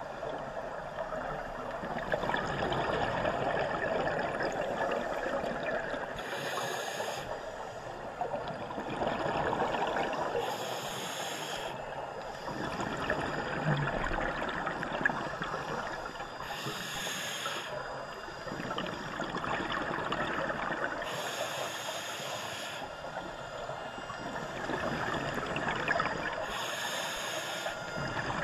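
Scuba regulator breathing heard underwater: a short hiss of each breath comes about every five seconds, and a rushing, gurgling stream of exhaled bubbles swells and fades between them.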